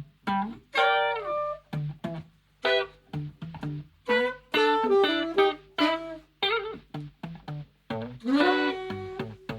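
Saxophone playing a melody over plucked acoustic guitar, an instrumental passage of a laid-back soul-jazz song, with some notes sliding in pitch.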